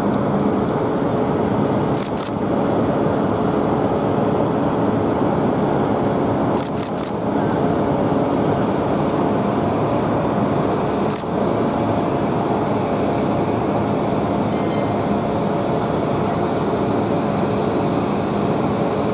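Boeing 787-9 Dreamliner's jet engines on landing approach and touchdown: a steady roar with some humming tones in it. The sound jumps briefly three times where the recording is cut.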